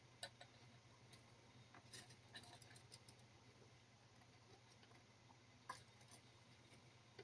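Near silence: faint room hum with a scattering of small, faint clicks, one about a quarter second in, a cluster around two to three seconds in, and another near six seconds.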